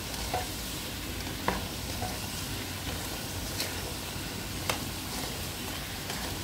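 Banana slices coated in brown sugar sizzling steadily as they fry in hot oil in a non-stick wok, with a few sharp clicks as they are stirred and turned.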